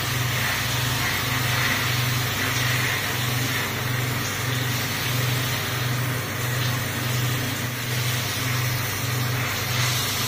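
Shower water spraying and splashing onto a wet tiled floor, a steady hiss, with a low hum underneath that pulses about twice a second.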